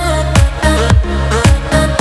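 Upbeat electronic dance background music with a steady kick drum at about two beats a second.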